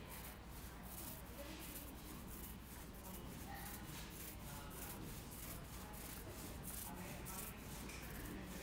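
Paint roller rubbing back and forth, a quick series of soft, hissy strokes a few times a second.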